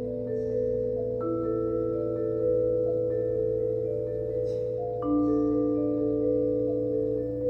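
Vibraphone played with four mallets: slow, sustained chords whose notes ring on and overlap, with a new note or two struck about every second.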